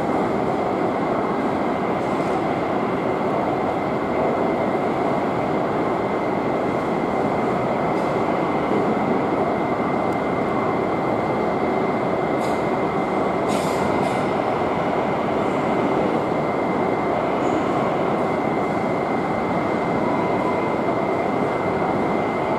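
Steady rumble of jet airliner engines on the apron, with a constant high whine, heard through the terminal's window glass. Two short clicks come about halfway through.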